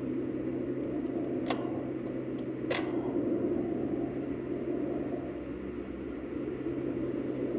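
Steady car cabin noise while driving: a constant engine drone under road and tyre noise. A few sharp clicks come between about one and a half and three seconds in.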